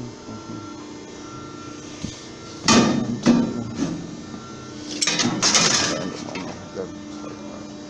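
Metal clanking: two sharp knocks about half a second apart, then a longer clatter of knocks and scraping about five seconds in, like steel crowbars striking and scraping against a wheel rim.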